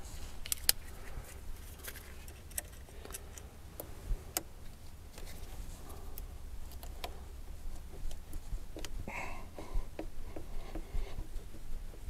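Scattered small plastic clicks and rattles as gloved hands press the lock clip on a diesel fuel injector's electrical connector and work the plug loose, over a low steady hum.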